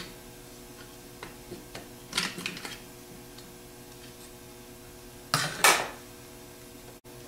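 Small screwdrivers prying the plastic rear cover off a GM DR44G alternator: a scatter of sharp plastic clicks and snaps in the first few seconds as the clips let go, then a louder clatter about five and a half seconds in.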